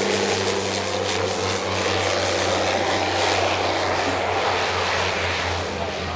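Fuji T-7 trainer's turboprop engine and propeller as the aircraft comes in low on landing approach with wheels and flaps down: a steady low hum under a broad rushing noise, easing slightly near the end as it passes.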